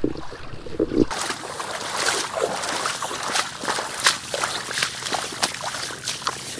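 Footsteps splashing through ankle-deep water at the shoreline, starting about a second in, with many small clicks and rustles.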